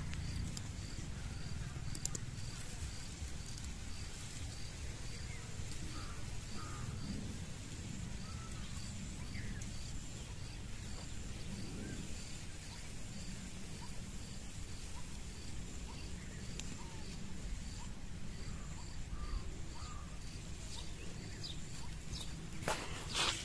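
Field ambience: an insect repeating a high, even chirp about twice a second over a continuous thin high buzz, with scattered short bird chirps and a low steady rumble. Right at the end, a burst of rustling from plants being pulled.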